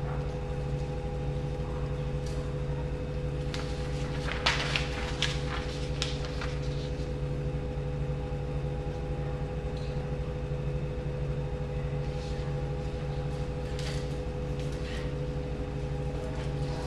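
A steady low hum, with a few light clicks and knocks, most of them about four to seven seconds in.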